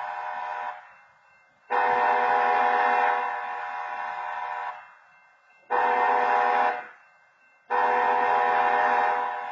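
BNSF diesel locomotive's air horn sounding a chord in separate blasts: the tail of one blast, then a long blast of about three seconds, a short one of about a second, and another long blast starting near the end.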